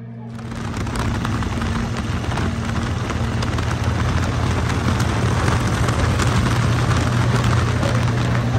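Chopper motorcycle riding at highway speed: a steady engine drone under loud wind rush and buffeting on the microphone. It swells up over the first second.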